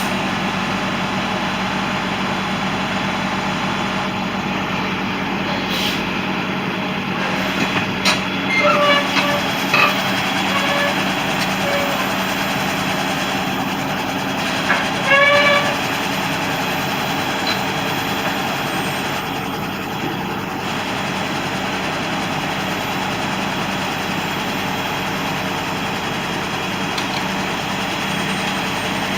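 Cat excavator's diesel engine running steadily under load, with the rapid rise and fall in engine speed that the owner describes as a high-frequency RPM oscillation. A few brief high-pitched squeals stand out about nine and fifteen seconds in.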